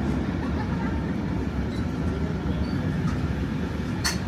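Steady rumble of an antique steam-hauled train's passenger carriage rolling along the track, heard from aboard the rear wagon, with one sharp click near the end.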